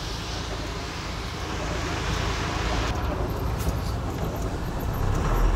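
Road traffic on a rain-wet street, heard from inside a waiting vehicle: a steady hiss of tyres on wet asphalt as cars and a motorcycle pass, with a low engine rumble building near the end.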